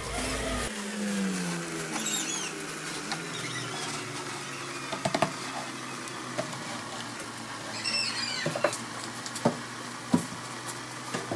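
Moringa leaves being tossed by the handful into a wok of cooking fish: soft rustling and scattered light pattering clicks over a steady low hiss. Short high chirps come twice, about two and eight seconds in.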